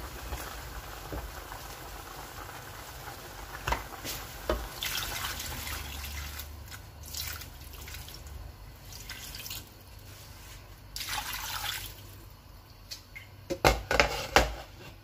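Water poured into a pot of chicken pieces that have simmered in their own juices, in two pours, with a wooden spoon knocking in the pot. Near the end, several sharp clinks as the glass lid goes onto the pot.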